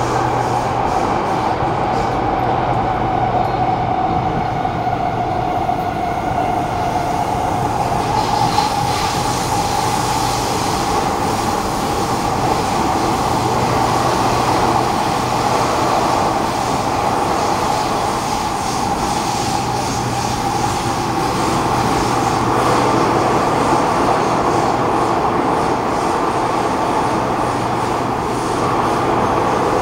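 Kawasaki Nippon Sharyo C751B metro train running, heard from inside the carriage: a steady rumble of wheels on rail with a traction-motor whine that sinks slightly in pitch over the first several seconds. A higher hiss joins about eight seconds in.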